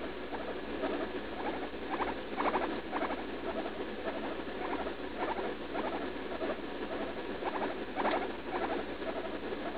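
Guinea pig giving short, soft squeaks, one or two a second.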